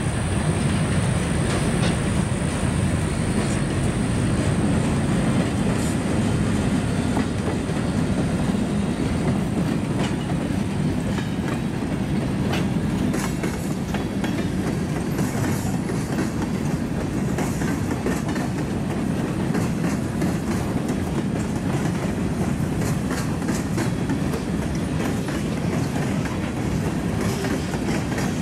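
Freight train cars, tank cars and covered hoppers, rolling past: a steady rumble of steel wheels on rail, with clicks as the wheels cross rail joints.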